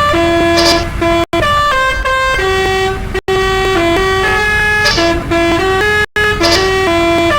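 Telolet musical air horn on a Basuri bus, playing a quick tooting melody of stepped notes over a low rumble, cut off abruptly three times.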